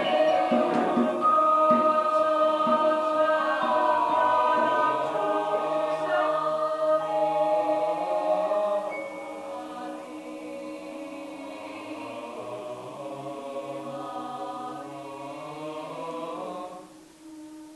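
Mixed choir singing a slow passage of long held chords, fuller and louder in the first half and softer from about halfway. Near the end most voices stop, leaving one low note held.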